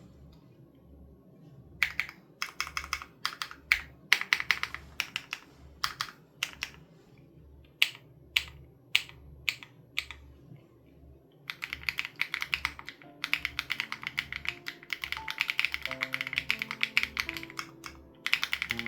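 Typing on an SPM AL87B mechanical keyboard with BSUN Raw switches and its sound-dampening foam removed. The keys clack in irregular bursts starting about two seconds in, then turn to fast, nearly continuous typing past the halfway point. Background music with a steady low beat plays underneath, and melody notes come in during the second half.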